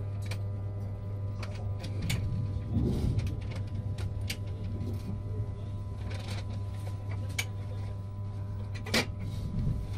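Interior of a Renfe passenger train carriage: a steady low hum with faint steady tones above it, broken by irregular sharp clicks and creaks. The loudest click comes near the end.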